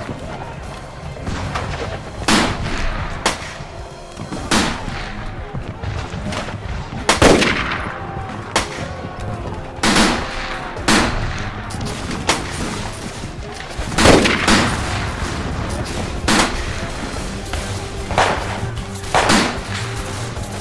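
Battle gunfire: irregular single rifle shots, about a dozen of them, sometimes two close together, each with a short echoing tail.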